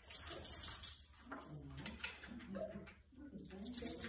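Indistinct voices of people talking, with bursts of high rustling noise about the first second and again near the end.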